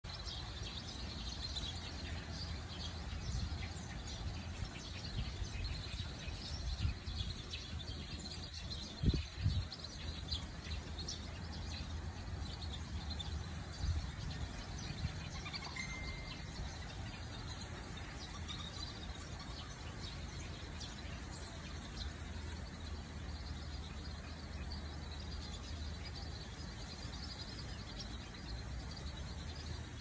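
A flock of birds calling with many short, high chirps over a steady low rumble, with a couple of brief low thumps about nine seconds in.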